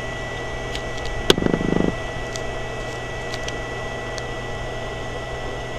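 Steady electrical hum and fan whirr from a running SCR pulse-circuit and electrolysis setup with its cooling fan, under a faint steady high whine. A sharp click a little over a second in is followed by a brief buzz lasting about half a second.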